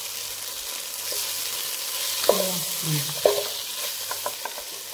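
Onion, tomato and spice masala sizzling in a nonstick pan while a wooden spatula stirs and scrapes through it, with a few louder scrapes around two to three seconds in.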